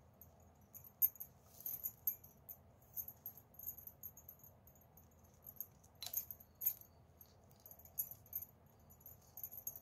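Flat plastic craft wire strips rustling and ticking against each other as they are threaded through a loop and pulled tight in a knot. The small clicks come irregularly, with sharper ones about a second in and about six seconds in.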